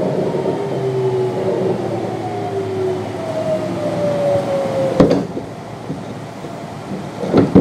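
Kintetsu 3200 series train's Mitsubishi GTO-VVVF inverter whining in falling tones as the train slows, heard from on board. Two sharp knocks come about five seconds in and again near the end.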